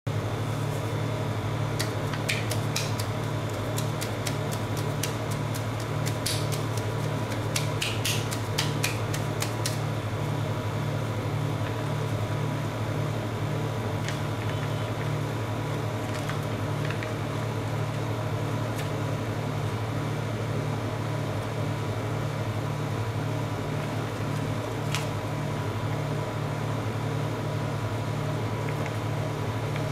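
Steady hum of a rolled-ice-cream cold plate's refrigeration unit. Occasional light clicks and crinkles come from a plastic drink pouch being picked up and handled.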